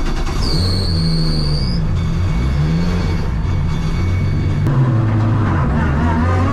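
Race car engine running, its pitch rising steadily near the end as the car accelerates away, with background music. A brief high-pitched tone sounds near the start.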